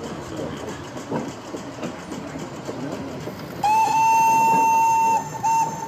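A model locomotive's whistle sounds one long blast, then a short one, over the steady background noise of the exhibition hall.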